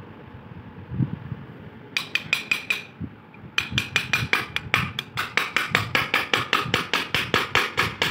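Rapid light metal-on-metal tapping with a short ringing note, about five strikes a second: a stuck, rusty bearing being tapped out of a ceiling fan's cast metal housing. A brief run of taps about two seconds in, then a longer steady run from about three and a half seconds.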